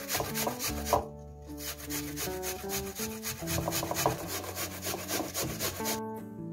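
Apple being grated on a metal box grater: quick, rhythmic rasping strokes, with a brief pause a little after a second in and again near the end. A simple melody plays underneath.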